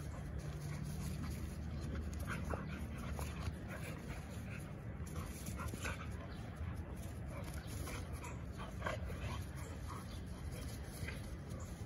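Two dogs play-fighting, with short dog vocal sounds coming many times in quick, irregular succession.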